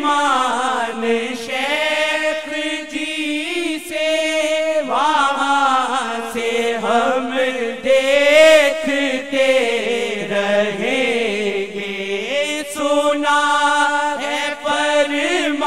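Devotional chanting of a naat: voices sing long, drawn-out melodic lines that rise and fall, without a pause.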